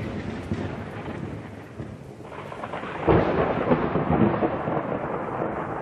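Thunder sound effect: a rolling rumble of thunder, with a second, louder thunderclap about three seconds in.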